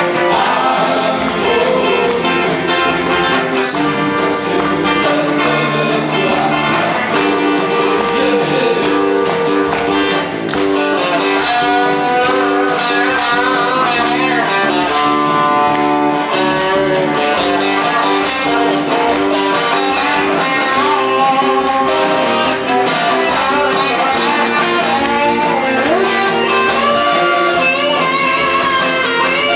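Amateur band playing 7080-style Korean pop live, with guitar to the fore.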